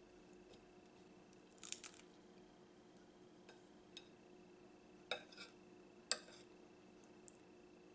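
Faint eating sounds: a handful of short, sharp crunches and clicks, as of a crispy taquito being bitten and food and utensils touching a plate, over a faint steady hum.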